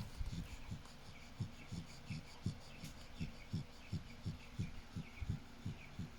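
Sleeping dog snoring in short, low, rhythmic puffs, about three a second.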